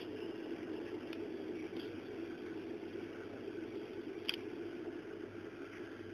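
Steady low hum with a faint hiss, broken by a few faint, short clicks, the sharpest about four seconds in.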